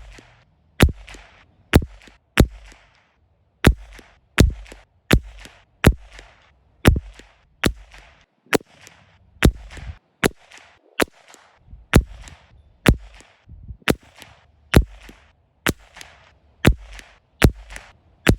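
A CZ 457 .22 LR rifle firing SK Rifle Match rounds in a steady string, about twenty sharp shots a little under a second apart, each with a short tail.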